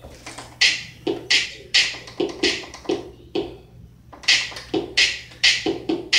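A rhythmic hip-hop-style beat: sharp snare-like hits over lower thumps, about two a second, with a short break about three seconds in before the beat picks up again.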